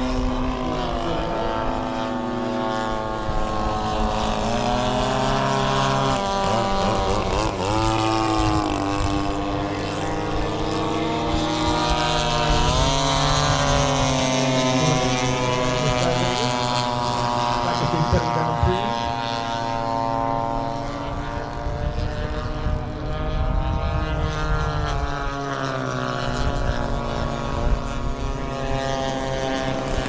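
Propeller engines of radio-controlled model airplanes in flight, their note rising and falling as the planes pass.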